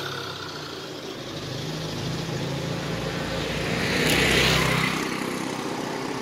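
Motor vehicle engine running while driving along a street, a steady low hum, with a rush of noise swelling to its loudest about four seconds in and then easing.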